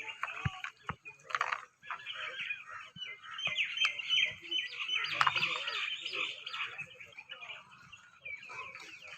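Many small birds chirping and chattering at once, a dense overlapping chorus. Two short low knocks sound in the first second.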